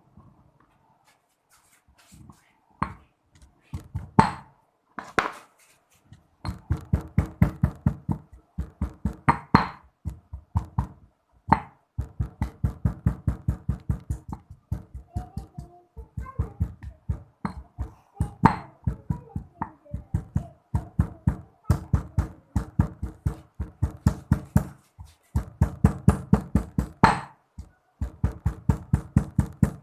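Pestle pounding in a mortar: a few separate knocks, then long runs of quick thuds, about five a second, with short pauses between runs.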